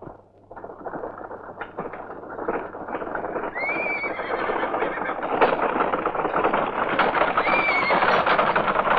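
Horse galloping, its hoofbeats growing steadily louder, with two short high neighs, about four and seven and a half seconds in.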